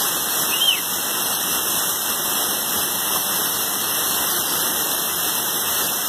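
Steady rushing of a waterfall and mountain stream over boulders, with a brief high chirp about half a second in.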